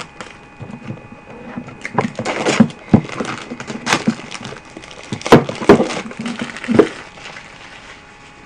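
Puzzle-cube box being opened and handled: irregular crackles, cracks and knocks of packaging, the loudest a little past halfway.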